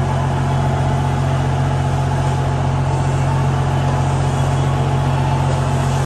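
Train standing at the platform with its engine running, a steady deep hum under general station noise.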